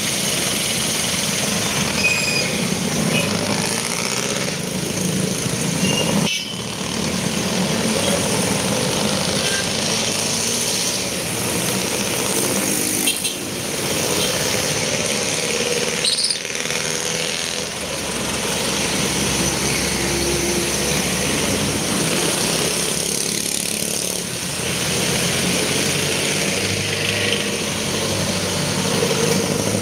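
Busy city street traffic: the engines of cars, jeepneys and motorcycles running close by, a steady dense rumble with no single standout event.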